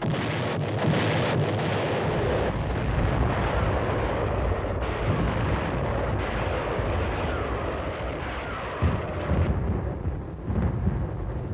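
Battle sound of artillery fire and explosions: a continuous, dense rumble of firing that starts abruptly, with several heavier booms about nine to eleven seconds in.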